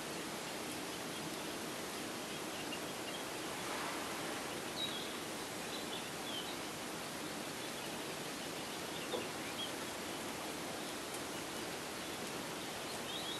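Steady outdoor background hiss with a few faint, short, high-pitched bird chirps scattered through it.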